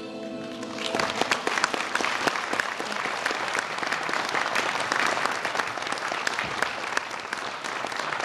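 The song's final held chord dies away, and about a second in an audience starts applauding, a steady mass of clapping hands.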